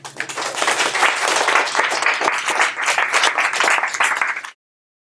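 Audience applauding, many hands clapping densely, cut off abruptly about four and a half seconds in.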